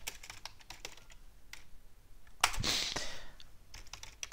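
Computer keyboard typing: a run of quick key clicks, with a short, louder burst of noise about two and a half seconds in.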